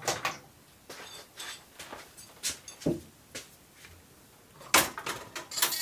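A few separate sharp clicks and knocks of metal hand tools being picked up and handled, a pin punch among them, spaced irregularly, with the loudest knocks near the end.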